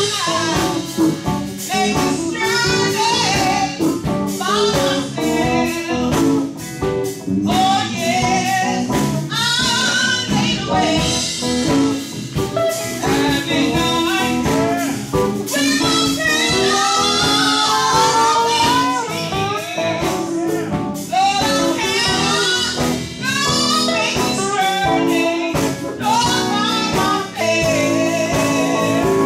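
Live sacred steel gospel band: a woman singing over a steel guitar, keyboard and drums. The steel guitar slides up in pitch about halfway through.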